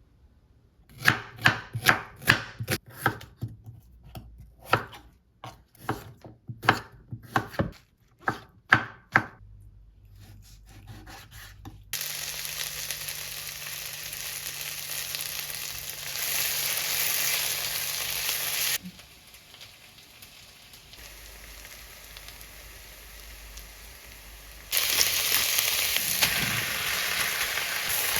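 Knife chopping food on a cutting board, a dozen or so sharp strokes at an uneven pace. Then food sizzling in a hot pan, a steady hiss that drops away and comes back abruptly a couple of times.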